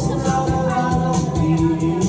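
Karaoke music played loud over a sound system, with a steady beat and a voice singing along.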